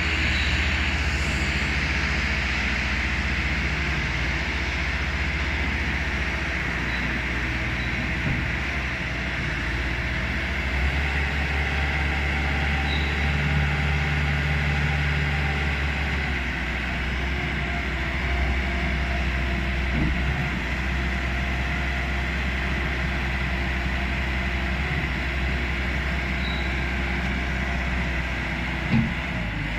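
Compact skid steer loader with a Kubota engine running steadily, a low engine note under a constant hiss. The note shifts for a few seconds about eleven seconds in, and there are a few short knocks, the loudest near the end.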